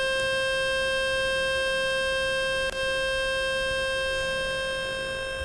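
Speaker-cleaning tone from the Fix My Speaker website: a loud, steady electronic tone with many overtones, played to shake dust and water out of a phone speaker. It falters briefly about two and a half seconds in and fades slightly near the end.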